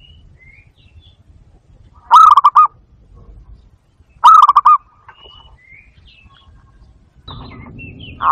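Barred dove (zebra dove) calling: two short, loud cooing trills about two seconds apart, each a quick run of four or five notes. Faint high chirps sound between them, and a low rush of noise rises near the end.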